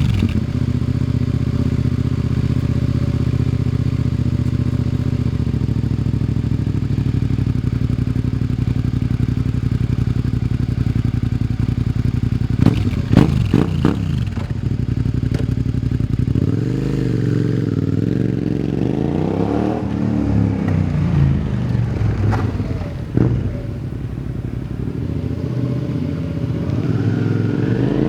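Suzuki SV650S V-twin motorcycle engine idling steadily just after starting. From about halfway in, the throttle is blipped several times and the revs rise and fall, with a few sharp clicks among them.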